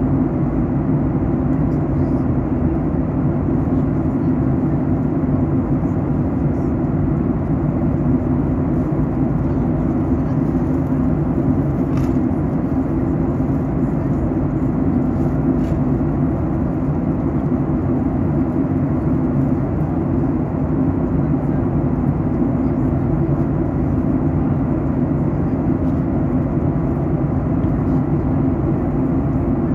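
Steady in-flight cabin noise of a Boeing 737 MAX 8 on descent: an even, low drone of airflow and its CFM LEAP-1B turbofan engines, with two faint clicks near the middle.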